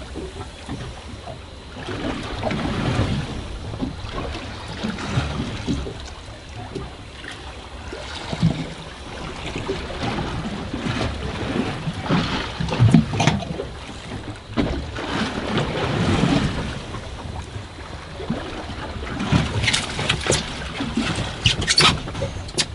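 Water sloshing and slapping against a small boat's hull in choppy sea, with wind, in uneven surges. A few sharp clicks and knocks come near the end.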